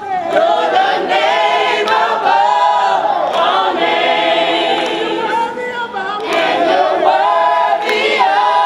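Many voices singing a worship song together, church congregational singing.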